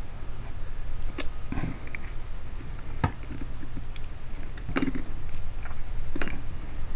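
Scattered metal clicks and short scrapes, about five or six, as a screwdriver works the crimped edge of a lock cylinder's metal cap back over, over a steady low hum.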